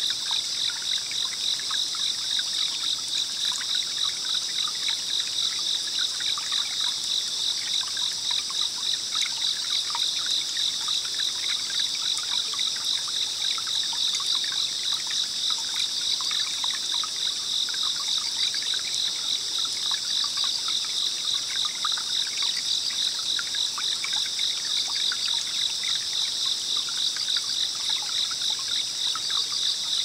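Water trickling and running in a small forest stream, with a steady chorus of insects pulsing rapidly at a high pitch above it.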